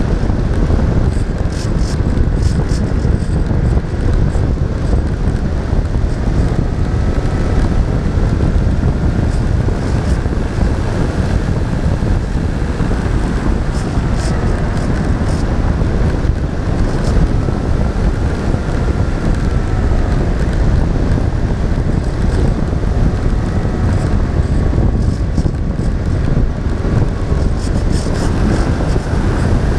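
Heavy wind buffeting the onboard microphone of a radio-controlled model aircraft in flight, with the faint whine of its motor slowly rising and falling in pitch.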